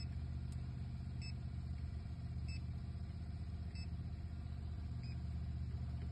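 Electronic refrigerant leak detector giving short, faint beeps about every second and a quarter. Its slow, spaced beeping is the signal that no leak is being sensed. A steady low machine hum runs under it and is the loudest sound.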